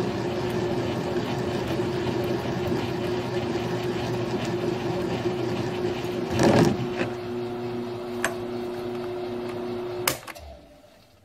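Grizzly G1007 milling machine running with an adjustable boring head cutting a bore in 6061 aluminum bar, a steady motor hum under the cutting noise. A brief louder burst comes about six and a half seconds in, and about ten seconds in a click as the machine is switched off and the noise drops away.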